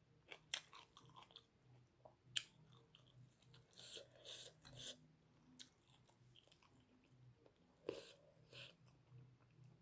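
Faint close-miked chewing and mouth sounds of a person eating, with a few sharp clicks, the strongest about half a second and two and a half seconds in.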